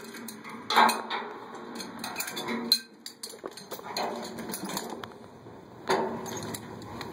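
Irregular clinks and knocks with bursts of rustling or scraping, louder about a second in and again near the end.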